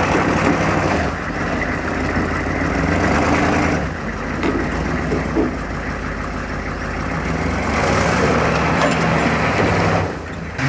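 Chevrolet M1031A CUCV's 6.2-litre diesel V8 running steadily as the truck crawls up a steep bank.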